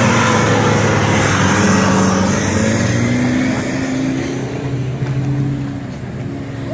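Modified Mahindra off-road jeep's engine running hard under load, its pitch wavering as it strains to tow a truck, with tyres spinning in loose dirt. The engine noise eases somewhat near the end.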